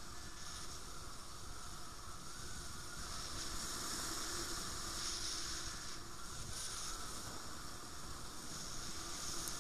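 Steady rush of air over the microphone of a camera riding along on a paraglider in flight.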